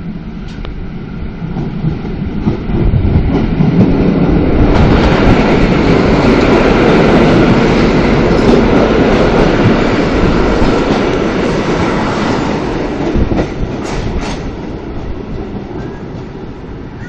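Koleje Śląskie EN57 three-car electric multiple unit rolling past close along the platform as it pulls into the station, its wheels rumbling and clacking over the rail joints. The sound swells over the first few seconds, is loudest in the middle, and fades as the train moves away, with a few sharp clacks near the end.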